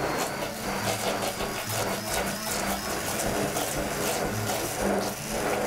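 Hand-held immersion blender running steadily in a plastic jug, its blade churning thick tomato, onion and carrot sauce into a smooth purée.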